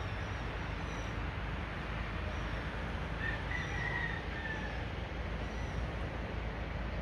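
Steady outdoor noise with a deep rumble underneath, small birds chirping high and short about once a second, and a brief louder call about three seconds in.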